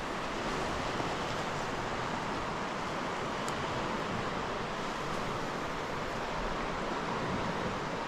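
A fast-flowing mountain river rushing over stones: a steady, unbroken roar of water.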